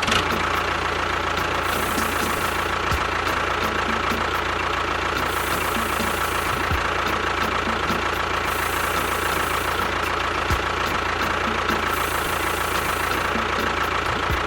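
A small motor running steadily with a constant whine over an even mechanical hum.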